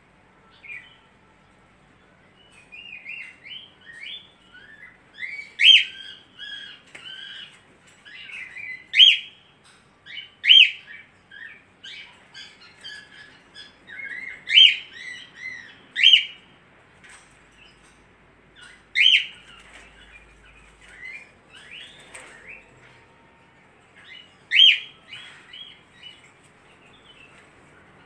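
A caged budgerigar chirping and chattering in runs of quick notes, with a sharp, loud chirp every few seconds.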